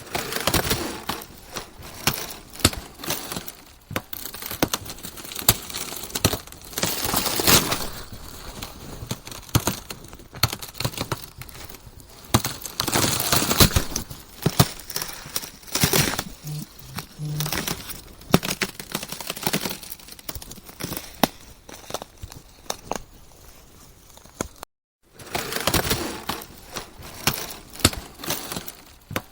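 Ice cracking and breaking: a dense, irregular run of sharp snaps, crackles and crunches in clusters, with a brief dead-silent cut near the end where the recording is spliced.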